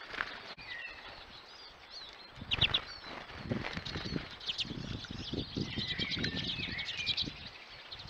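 Small finches twittering with quick, high call notes that grow busier in the second half, over low fluttering and soft knocks of wings and feet close to the microphone as birds land and shift on the feeder perches. The loudest moment is a burst of wingbeats and chirps about two and a half seconds in.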